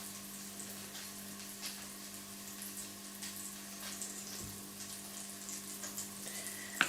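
A steady low hum under a faint even hiss, with a few small soft clicks.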